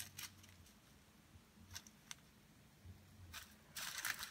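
Faint handling sounds of small plastic diamond painting supplies: a few sharp clicks, then a short crackly rattle near the end.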